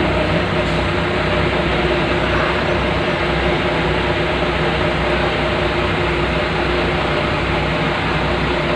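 Large engines running steadily: a continuous low rumble with a constant droning hum.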